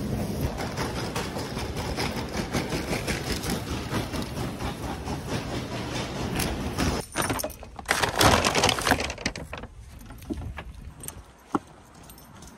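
Loaded metal shopping cart rattling and clattering as it is pushed along a hard store floor. About seven seconds in it gives way to a short, louder noisy stretch, then quieter sound with a single knock.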